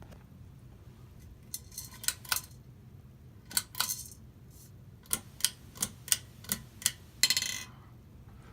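A series of sharp, metallic clicks and jingling rattles on a ceiling fan, about ten in all. Six come evenly about three a second, and a longer rattle comes near the end, over a faint steady hum.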